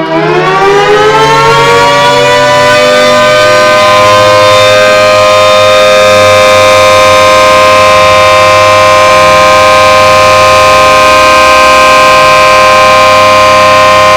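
Warning siren sounding on test, very loud. It winds up from a low pitch to a steady high tone over the first couple of seconds, then holds that tone.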